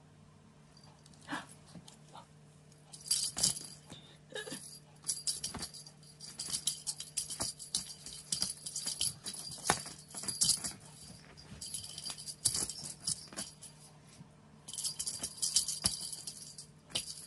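Small bells jingling in repeated short bursts, with scattered light knocks and clicks, over a faint steady low hum. The jingling pauses for a few seconds after about eleven seconds and returns near the end.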